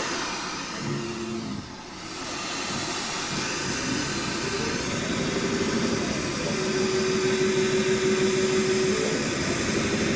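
CNC upholstery perforating machine running, its punching heads rapidly punching rings of holes in car seat leather: a dense, fast run of strokes with a motor whine that comes and goes at a few different pitches, briefly quieter about two seconds in.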